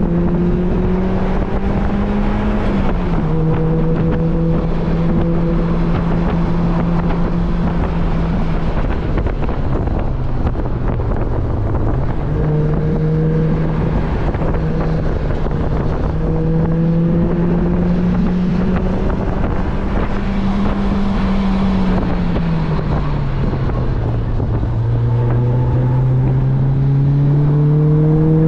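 Onboard sound of a sports car's engine and exhaust under way on a race track, the engine note climbing through the revs, dropping back at a gear change about three seconds in, easing off around the middle and dipping again before climbing near the end. Wind rushes steadily through the open cockpit.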